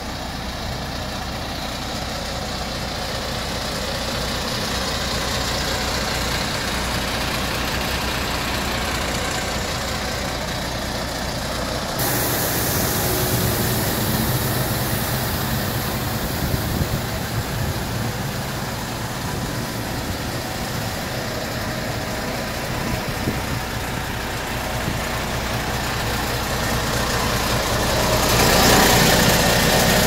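MAN TGX truck's diesel engine idling steadily, louder near the end.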